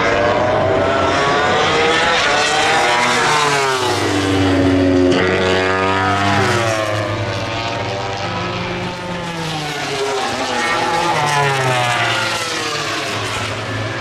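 MotoGP prototype racing motorcycle engines revving through corners. The pitch falls as the bikes brake and downshift, then climbs as they accelerate out, twice.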